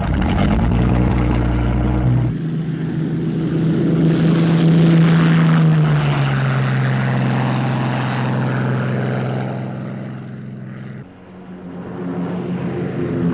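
Heavy engines droning steadily with a deep hum, the sound changing abruptly about two seconds in and again near the end.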